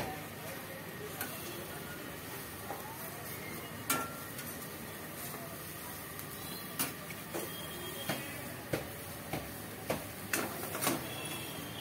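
Metal spatula scraping and tapping against a frying pan as an omelette is turned and folded. There is a single sharp clack about four seconds in, then a run of clacks about every half second in the second half, over a steady background hiss.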